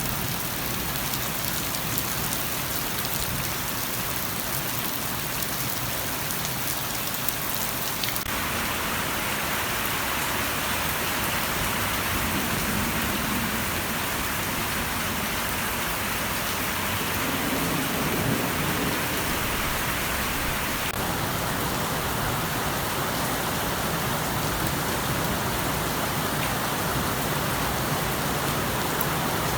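Steady rain falling and pattering on surfaces. The sound changes abruptly about eight seconds in and again a little past twenty seconds.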